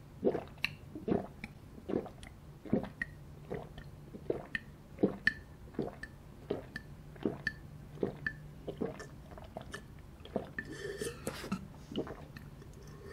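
A person gulping a drink down from a glass jar in one long go, with steady swallows at about two or three a second.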